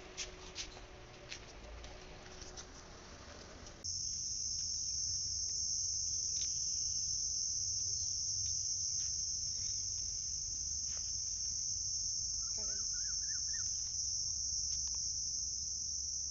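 Steady, high-pitched drone of insects, setting in suddenly about four seconds in, after a few faint clicks. A brief run of chirps sounds around twelve seconds in.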